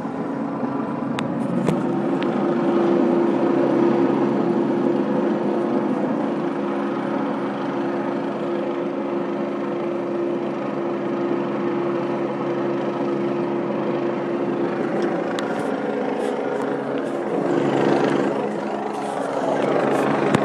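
Helicopter hovering low overhead: a loud, steady rotor and engine drone with a held hum.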